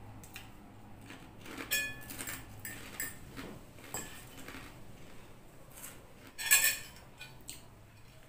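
Metal fork and spoon clinking and scraping against a ceramic bowl while the last of the noodles is gathered up. There are scattered short clinks, some with a brief ring, and the loudest comes about two-thirds of the way in.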